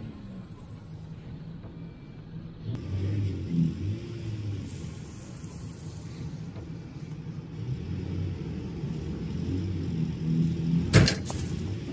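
Pickup truck engine revving repeatedly under load while pulling a stuck truck out of mud, its pitch rising and falling. A single sharp bang comes near the end.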